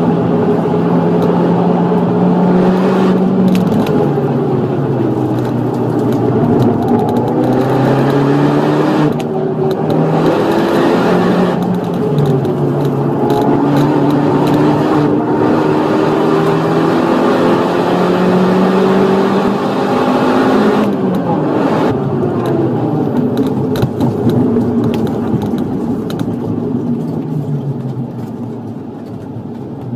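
Opel Astra H OPC's turbocharged 2.0-litre four-cylinder engine under hard acceleration, heard from the cabin, its pitch rising through the revs and dropping again at each gear change or lift. Near the end it falls quieter to a low idle as the car slows almost to a stop.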